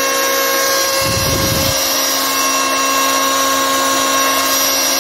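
Makita M1902B electric hand planer running steadily at full speed with no load, its trigger locked on, smooth and without vibration. A brief low rumble comes in about a second in.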